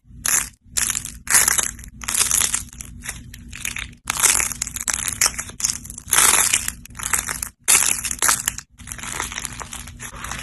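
Crackling and crunching as handmade clay figurines are squeezed and crushed in the hand, in a run of short clips with brief silent breaks between them.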